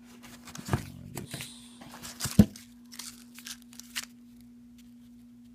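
Packaging of boxed firework shells being handled: plastic crinkling and rustling with scattered light knocks, one sharper knock about two and a half seconds in, then handling stops. A steady low hum runs underneath.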